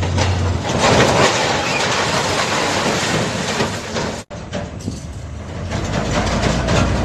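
Heavy truck rumbling and clattering, louder about a second in as its loaded rear end sinks into soft ground. The sound cuts out briefly about four seconds in.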